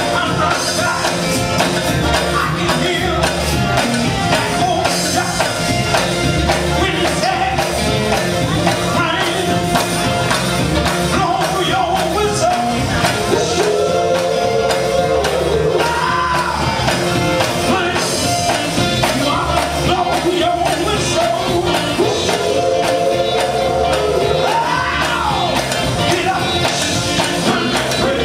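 Live gospel band performing: a lead singer's voice over electric guitar, bass guitar and a drum kit, loud and continuous.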